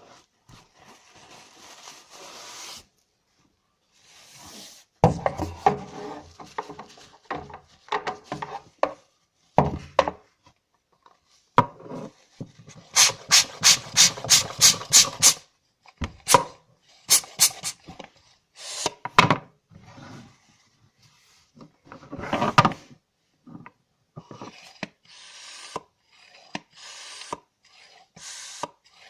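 A pump being handled and worked: rubbing and scraping noises in short bursts, with a quick, even run of about ten sharp strokes a little before the middle.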